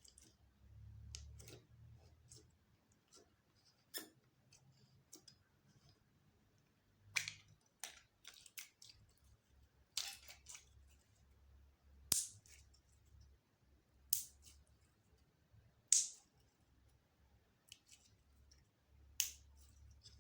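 Slime being kneaded and pressed by hand, giving a sharp pop or click about every two seconds, with small crackles between and a faint low rumble underneath.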